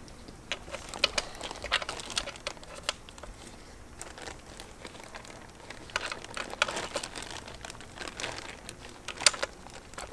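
Plastic bag crinkling as a gloved hand rummages for greased valve lifters. Scattered small clicks and taps come from the metal lifters being set into their bores in the cylinder head, the sharpest about nine seconds in.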